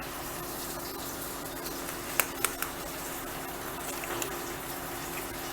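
Eggs being cracked on the rim of a bowl: three sharp taps in quick succession about two seconds in, over a steady low hum.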